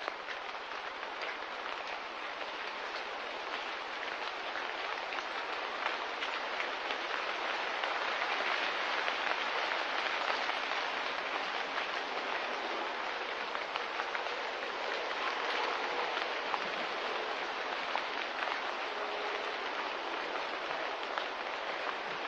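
Steady light rain falling, an even hiss that swells a little about eight seconds in.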